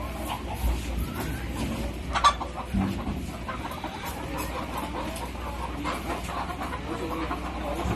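A cage of Dekalb Brown laying hens clucking and calling over one another, with a single sharp knock about two seconds in.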